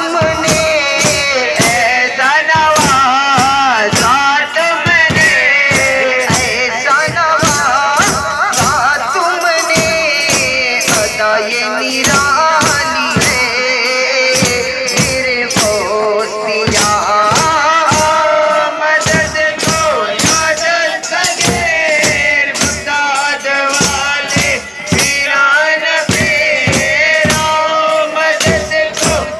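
Group of men singing a devotional chant over a steady, continuous beat of hand-struck frame drums.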